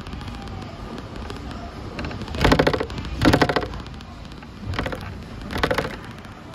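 Hong Kong double-decker tram running, with two pairs of sharp clattering knocks from the running gear, the knocks in each pair under a second apart, over the steady rumble of the ride.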